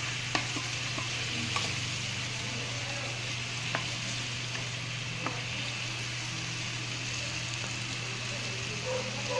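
Chicken pieces frying in soy sauce in a nonstick pan, sizzling steadily while a spatula stirs them. The spatula knocks sharply against the pan a few times.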